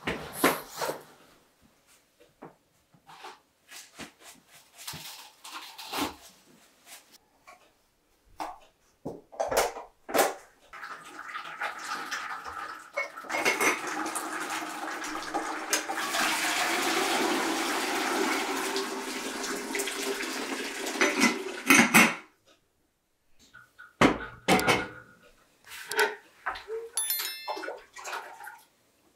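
Water pouring steadily for about ten seconds, then stopping suddenly, with scattered knocks and clatter before and after. A brief high chirping near the end.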